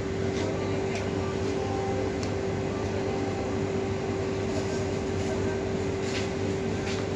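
Refrigerated meat display counter humming steadily, with a constant mid-pitched tone over a low hum; a few faint clicks.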